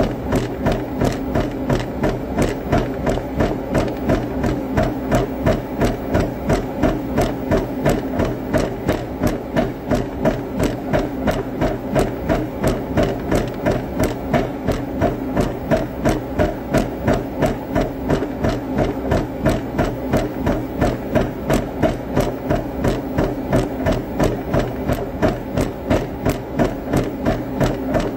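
Steady rhythmic thumping from a vigorous workout, about two to three knocks a second with a light rattle, kept up without a break.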